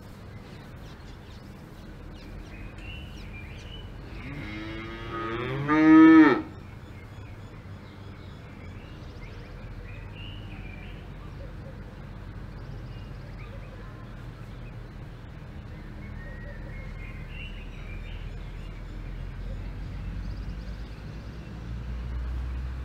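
A cow mooing once: a single call of about two seconds that rises and swells to its loudest, then breaks off sharply. A faint steady outdoor background follows.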